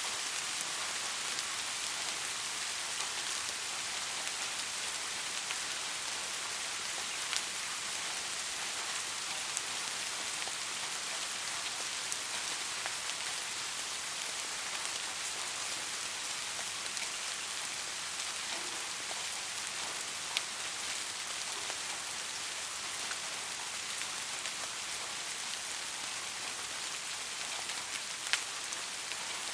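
Steady rain falling on a surface, an even hiss with now and then a single louder drop striking close by.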